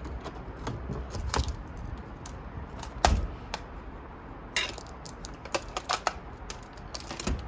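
Irregular sharp metallic clicks and knocks as parts inside an iMac are forced loose by hand. The loudest is about three seconds in, with a quick cluster a little after the middle and another near the end.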